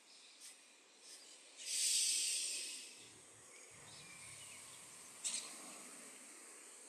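A loud, hissing breath out about a second and a half in, lasting about a second and fading away, over a faint steady hiss; a short click follows later.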